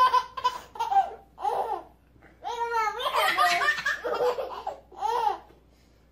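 Baby laughing in a run of short belly-laugh bursts, stopping about five seconds in.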